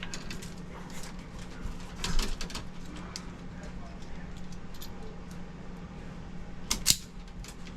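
Scattered light clicks and scrapes from handling electrical wires and tools at a panel box, with a sharper click about two seconds in and another near the end, over a steady low hum.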